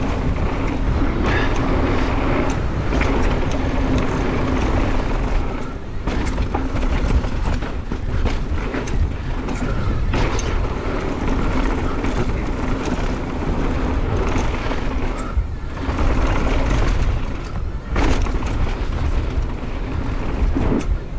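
Mountain bike riding along a dirt trail, heard from a bike- or rider-mounted camera: steady wind rush on the microphone and tyre noise, with frequent knocks and rattles of the bike over bumps.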